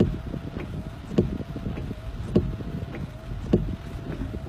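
Car windscreen wiper sweeping in heavy rain, with a thump at each stroke about every 1.2 seconds, four times, and a steady thin hum between them. Under it runs the low rumble of the car.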